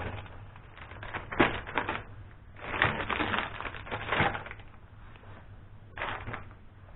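Food containers and packaging knocking, clattering and crinkling as they are set onto refrigerator shelves, in several short bursts with sharp clicks.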